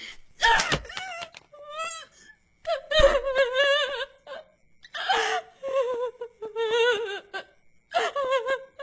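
A woman laughing in several long bouts with a wavering, shaking pitch and short breaks between them.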